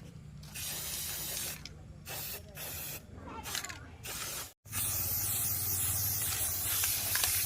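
Pressurised spray hissing in several short bursts, then steadily after a sudden cut about halfway through, over a low machine hum.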